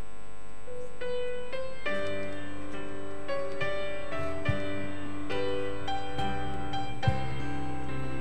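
Piano playing a slow melody, one note at a time, with low notes sounding beneath it from about two seconds in.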